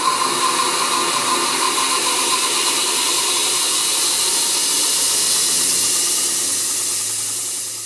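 Knife-making belt grinder (model 4.2) running empty, its motor and abrasive belt making a steady mechanical whir and hiss. The sound fades out near the end.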